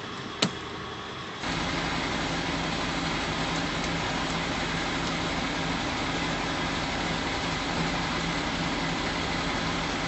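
A sharp click, then about a second and a half in a steady rush of air with a low mechanical hum switches on abruptly and runs evenly: air pressure being let into the launcher to invert the cured-in-place liner and its bladder into the pipe.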